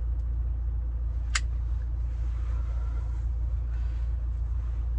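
A cigarette being lit with a lighter, with a sharp click about a second and a half in, over a steady low rumble inside a car cabin.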